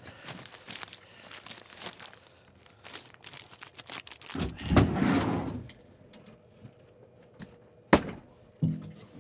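Brown paper bag crinkling and rustling as it is handled and opened in gloved hands, with a louder rush of rustling about halfway through. Near the end comes a sharp thunk, then a softer knock.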